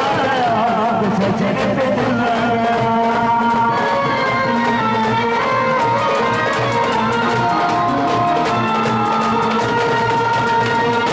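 Procession brass band playing a melody over drums. About six seconds in, a quick, steady beat of sharp drum and cymbal strokes comes to the fore.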